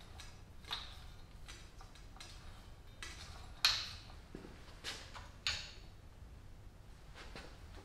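Homemade hand-cranked metal-rolling machine bending a steel bar into a ring: scattered metallic clicks and ticks as the handwheel turns and the bar feeds through the rollers. The sharpest click comes about three and a half seconds in.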